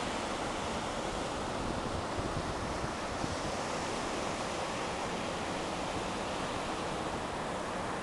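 Ocean surf washing steadily onto a sandy beach, with wind buffeting the microphone.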